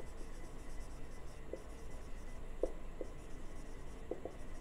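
Marker pen writing on a whiteboard in short strokes, with a few brief squeaks of the tip scattered through.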